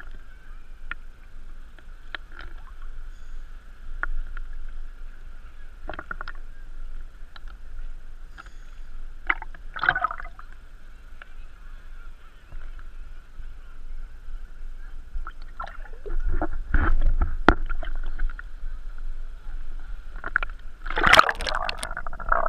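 Muffled water sloshing and splashing against an action camera held at the surface on a pole, with scattered knocks and a steady high hum underneath. The loudest splash comes near the end, as the camera dips under the water.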